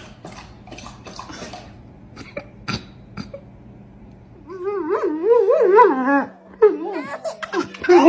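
A dog howling in a wavering voice that rises and falls, starting about halfway through and getting louder. Before it there are only faint scattered clicks.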